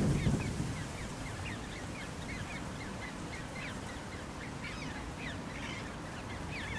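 Great crested grebe chicks calling: a rapid series of short high peeps, two or three a second, kept up throughout. A low rumble fades out in the first half second.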